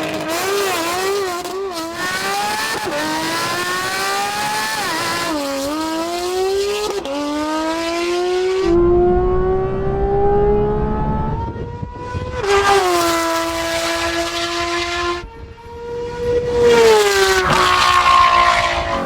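Porsche sports car engine at full throttle, its pitch climbing through the gears with several quick dips at the shifts, loudest near the end. It peaks at about 107 dB on a sound meter.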